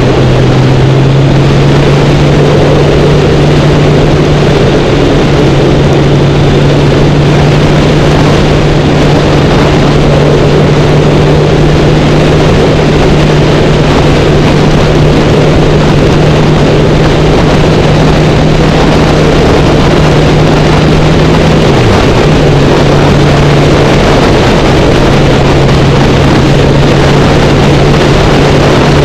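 Kawasaki Ninja 1000's inline-four engine holding a steady cruising note at road speed, with wind rushing over the microphone. About three quarters of the way through, the note dips briefly and then settles back.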